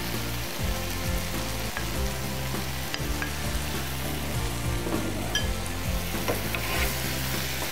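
Shrimp and diced vegetables sizzling steadily in a hot nonstick frying pan as they are tipped in and stirred with a wooden spatula.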